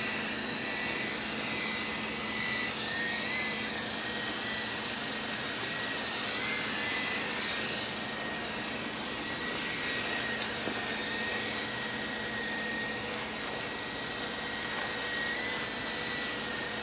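Small Silverlit remote-control toy helicopter in flight: a steady high whine from its electric motor over the hiss of the rotor, the pitch wavering slightly a few times.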